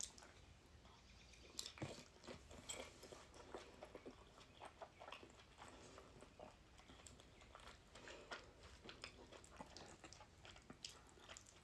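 Faint close-up chewing of a bite of pierogi, with soft irregular mouth clicks and smacks.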